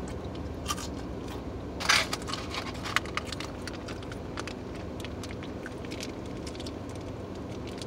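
A small printed paper packet crinkling as it is handled and torn open, with a sharp rustle about two seconds in and scattered light crackles after it, over a steady low hum.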